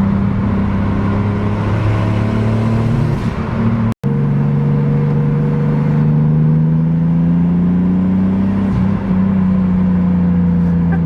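Turbocharged BMW E36's inline-six engine running under way with a steady drone. The sound cuts out for an instant about four seconds in, then the engine's pitch climbs slowly.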